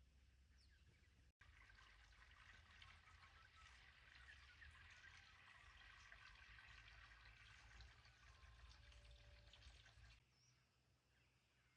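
Near silence with a faint, even hiss that starts after a brief cut about a second in and drops away about ten seconds in.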